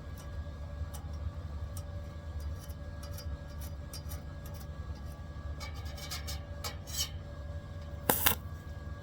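Welding set humming steadily, with scattered sharp metallic clicks and crackles as spot welds are made. The crackles come thicker about six to seven seconds in, and a short, loud crackling burst of arc comes about eight seconds in.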